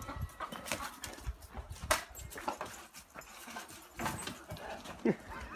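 Irregular crunching, scuffling and knocking of footsteps on dry leaves and twigs as a young Kangal dog runs loose among the poultry and is chased, with a few short calls about five seconds in.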